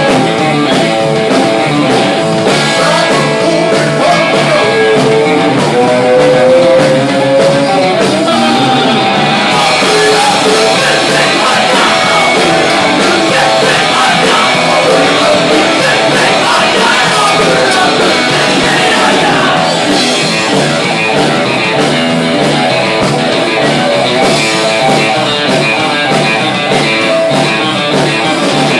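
A live rockabilly-punk band playing loudly on electric guitars, bass and drums, with singing. One note bends upward about five seconds in.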